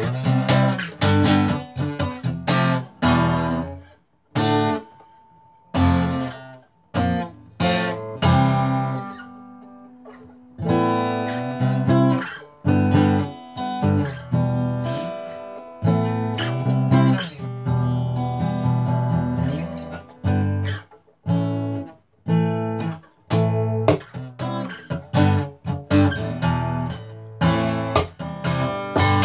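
Solo acoustic guitar strummed in stop-start phrases: sharp chord strums that ring on, with several short pauses.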